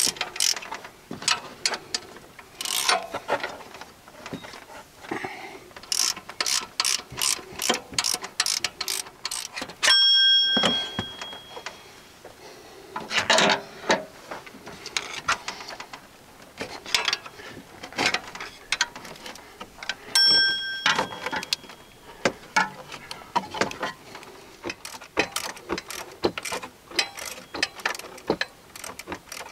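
Socket ratchet wrench clicking in quick runs as bolts are turned. Twice, about ten seconds apart, there is a louder, short ringing sound.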